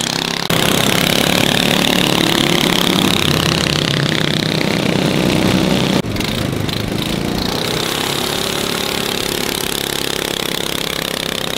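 Small gasoline go-kart engines running hard, rising in pitch as they accelerate during a drag race between a go-kart-framed monster truck and a kids' gas mini Jeep. The sound changes abruptly about half a second in and again around six seconds in, then settles to a steadier drone.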